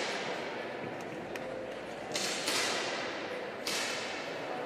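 10m air pistol shots on a competition firing line: three sharp cracks, two in quick succession a little over two seconds in and another about a second later, each ringing on in a large reverberant hall.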